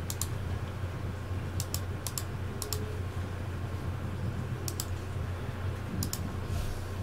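Computer keyboard keys clicking sparsely, a few short pairs of clicks spread out with gaps between, over a steady low hum.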